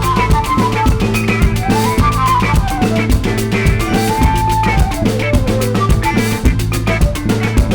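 Background music with a steady drum beat, bass and a moving melody.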